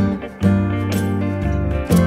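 Background music: a plucked-string tune over held bass notes, with a new note struck about once a second.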